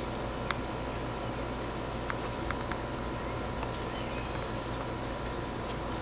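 Two dogs play-wrestling quietly on grass and dry leaves: a few faint clicks and rustles over a steady hiss and low hum.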